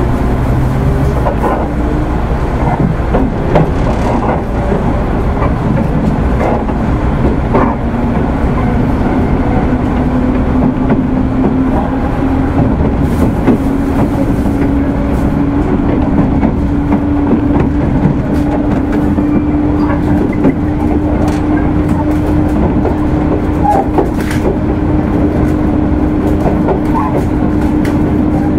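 Running sound of a JR 205 series 600 subseries electric motor car, whose traction motors have external cooling fans. The motor whine climbs slowly in pitch through the first half, then holds steady as the train cruises. Wheel and rail rumble and clicks of rail joints run underneath.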